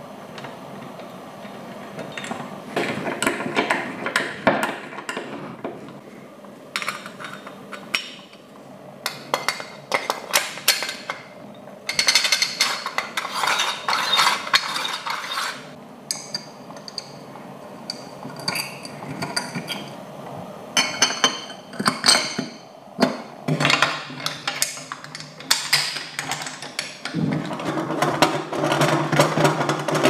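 Aluminium coffee-grinder parts being assembled by hand: irregular metallic clinks and knocks of parts set on the bench and fitted together, with stretches of scraping as screws and bolts are threaded in and turned with a screwdriver.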